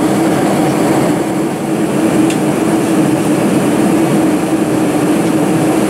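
Steady cabin noise of a Boeing 747-400 in flight, heard from a seat over the wing: an even engine and airflow roar with a constant low hum.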